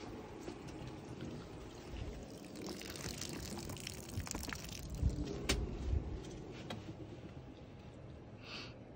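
Water pouring and splashing from an opened outdoor spigot onto the ground as a newly pressurized water line is first run, with a few sharp clicks.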